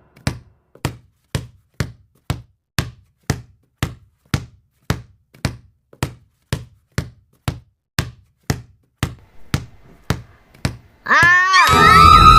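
Sharp, evenly spaced ticks, about two a second, in the manner of a countdown. Near the end an alarm siren comes in much louder, winding up in pitch and then holding a steady high tone.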